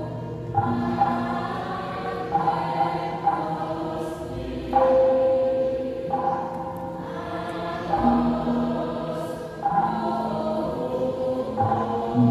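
Javanese gamelan music for a bedhaya dance: a chorus sings long held notes over sustained struck-metal tones, the notes changing together about every one and a half to two seconds.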